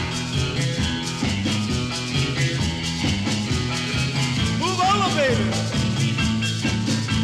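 Upbeat rock and roll music with a steady low bass line and sliding instrumental notes about five seconds in.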